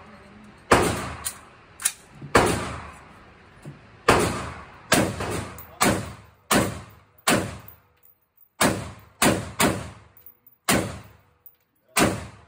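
AR-15 rifle firing .223/5.56 rounds, about a dozen single shots at an uneven pace of roughly half a second to a second and a half apart. Each sharp crack is followed by a short echo off the walls of an indoor range.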